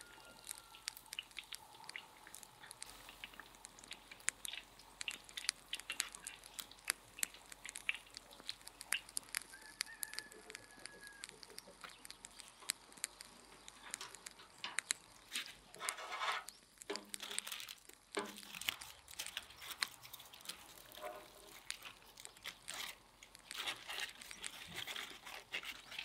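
Faint crackling and scattered clicks from a charcoal grill, with bursts of aluminium foil rustling about sixteen seconds in and again near the end, and a short bird call about ten seconds in.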